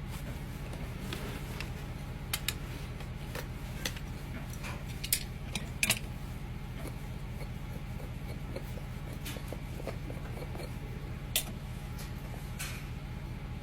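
A farrier working on a horse's hoof: a handful of sharp clicks and snaps from the trimming tools, scattered over a steady low hum.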